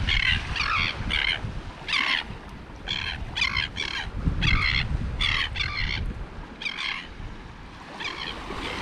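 A bird calling over and over in short, quick calls, with wind rumbling on the microphone.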